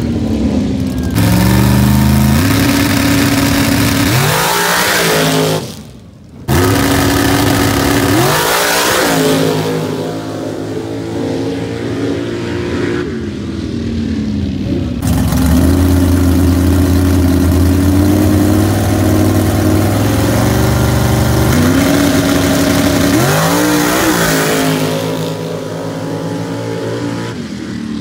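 Pickup truck engine at full throttle on a drag run, its pitch climbing and dropping back again and again as it shifts through the gears, with a steadier stretch in the middle.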